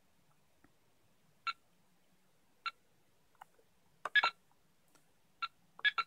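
Keypad presses on a MAX6 antenna analyzer, each giving a very short, sharp beep. About eight come at irregular intervals, with a quick cluster of three about four seconds in and two more near the end.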